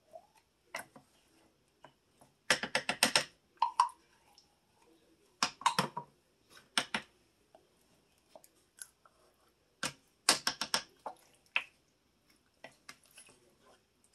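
Wooden spoon scraping and knocking inside a small metal can while thick tomato sauce is spooned out into a crock pot. The sound comes as several short runs of quick clacks with quiet gaps between them.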